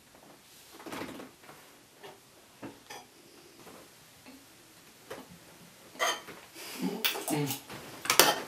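A spoon clinking and scraping in a bowl as food is spooned out. A few scattered light clicks come first, then a quicker run of clinks from about six seconds in.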